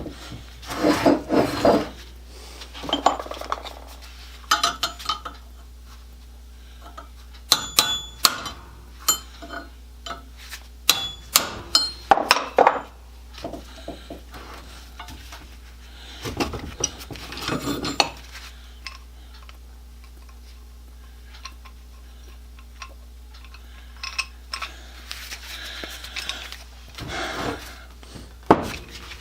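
Metal clinks, taps and clatter from a C-clamp and small tools being handled, in irregular bursts with pauses between them, over a steady low hum.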